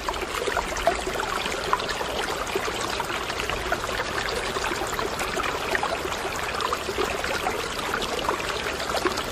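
Steady running water, trickling with many small splashes.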